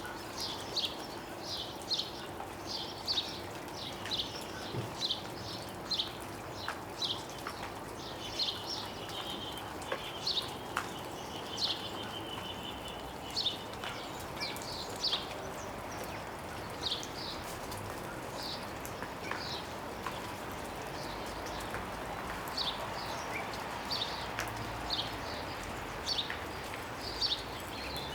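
Small garden birds chirping close to the microphone in a tree: short high chirps, about one or two a second, with a longer rattling trill about a third of the way in. Faint ticks of melting snow dripping from the branches.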